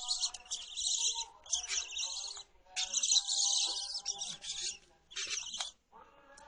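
Barn owls screeching: a string of harsh, hissing screams, each less than a second long, repeated about half a dozen times with short gaps.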